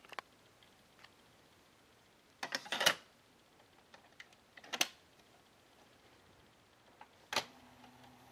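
Buttons of a Sony portable cassette radio clicking as they are pressed: a quick cluster of clicks, then a single sharp click about halfway through, then another near the end, after which a faint steady hum starts.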